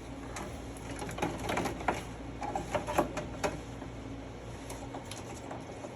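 Irregular light clicks and rattles of parts and wiring being handled in a pinball machine, busiest in the first few seconds, over a faint steady hum.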